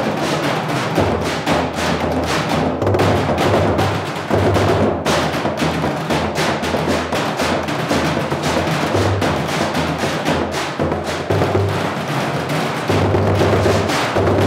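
Drumline playing a fast, dense groove on galvanized metal trash cans hit with sticks, big drums hit with mallets, and an orange Igloo water cooler, with heavy low thumps under the clatter of the cans. It gets a little louder near the end.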